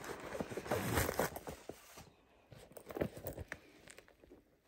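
Crinkling and rustling of packaging stuffing being pulled out of a handbag, busiest in the first two seconds, then quieter with a few scattered light rustles and clicks.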